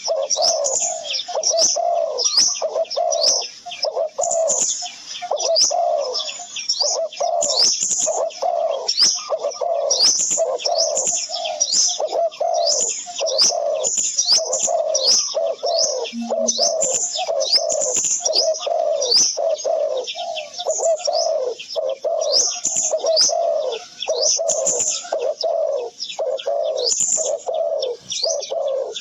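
Birds calling without a break: low, rapidly repeated calls together with high chirps, at an even level.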